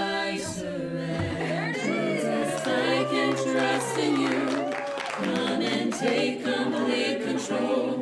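A small mixed a cappella vocal group singing a held, harmonized gospel chorus, with hand claps keeping time.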